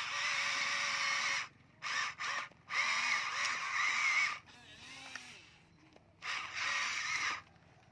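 Electric drive motors of a Huina remote-control model excavator whining in several bursts as the boom and bucket are worked, each burst stopping sharply, with short pauses between.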